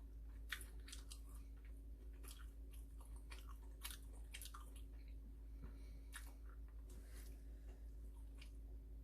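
Faint eating sounds: chewing with scattered light clicks at irregular intervals, over a steady low hum.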